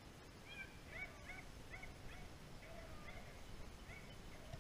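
Faint, distant animal calls: a quick, irregular string of short, rising-and-falling cries from several voices, starting about half a second in.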